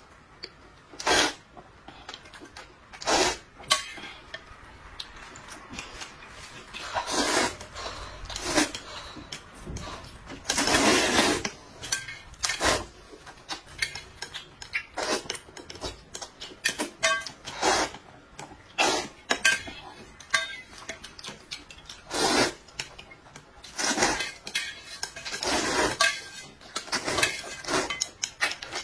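Eating noises: noodles being slurped in repeated noisy bursts of up to a second or so, the longest about eleven seconds in, with a spoon and chopsticks clinking against a metal bowl and dishes.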